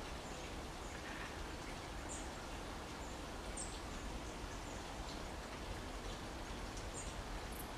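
Steady outdoor background noise with a low rumble, and faint, short bird chirps scattered through it, a few standing out a little more.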